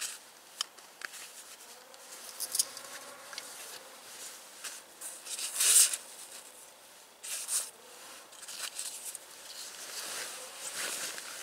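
Small clicks, taps and rustles of matches and a match case being handled, with a louder half-second scratching hiss about six seconds in.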